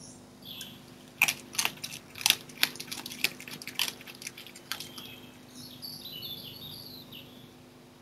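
Red fox eating meat from a plastic dish: a run of sharp, irregular clicks and crunches lasting a few seconds. Birds are singing at the start and again after the clicks.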